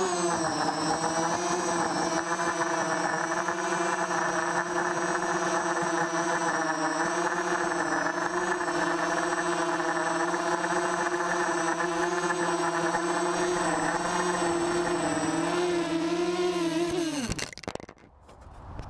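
Brushless motors and 5030 propellers of a micro quadcopter, heard from the GoPro on its frame: a steady pitched hum whose pitch wavers slightly with throttle, then falls away sharply about seventeen seconds in as the motors spin down.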